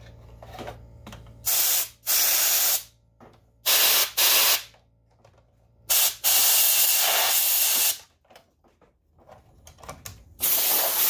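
Compressed air from an airline regulated down to 10–15 PSI, fired in short hissing blasts to blow dust out of an opened video projector around its lamp ballast. There are several blasts of half a second to a second each, one longer blast of nearly two seconds past the middle, and another starting near the end.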